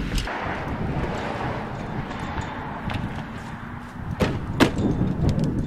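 An SUV door being shut, two sharp thuds about half a second apart, over steady outdoor background noise.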